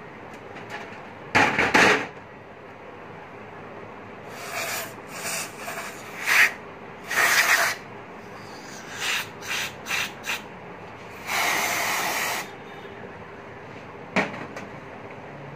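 Aerosol carburetor cleaner sprayed through its red extension straw onto a stripped carburetor in about a dozen short hissing spurts, one lasting over a second.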